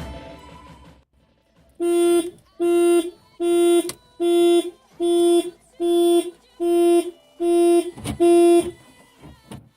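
Car's electronic warning chime beeping nine times at an even pace, about one beep every three quarters of a second, each a short steady mid-pitched tone.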